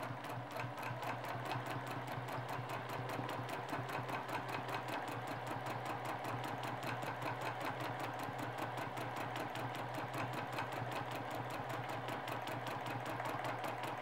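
Domestic sewing machine stitching steadily at a fast, even rhythm while free-motion quilting, with the feed dogs dropped and a free-motion quilting foot fitted.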